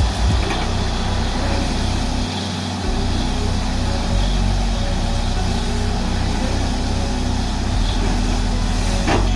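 Truck-mounted DTH borewell drilling rig running loudly and steadily, a dense mechanical roar with a deep low rumble.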